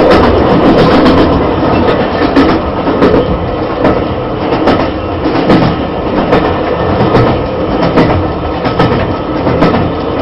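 Train running along the track: a steady rumble with the clickety-clack of wheels over rail joints, a click a little less than once a second.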